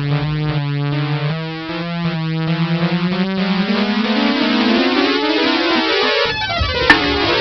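Synthesizer music of held notes, with one tone rising slowly in pitch over several seconds. One short sharp click sounds near the end.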